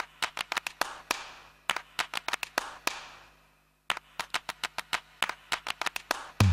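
Rhythmic hand clapping in quick runs of sharp claps, three runs with short gaps between them, as a percussion break in the background music, over a faint low hum.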